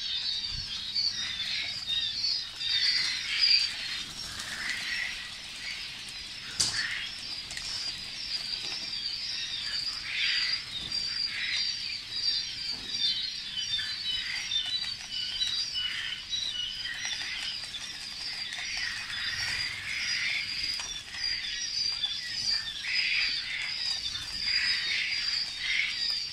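A large flock of young coturnix quail chirping, a dense, continuous chorus of many overlapping high calls. One sharp click sounds about six and a half seconds in.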